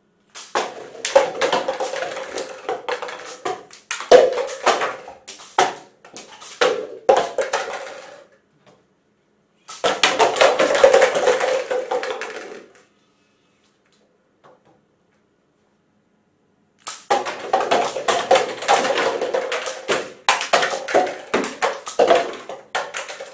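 Plastic party cups clattering and bouncing on a wooden tabletop as a stacked tower of them is shot down by a homemade syringe revolver. A long run of clatter begins about half a second in, a shorter one comes around ten seconds, and another starts at about seventeen seconds.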